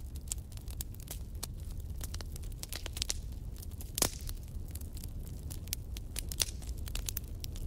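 Wood fire burning in a fireplace: irregular crackles and pops over a steady low rumble, with one louder pop about four seconds in.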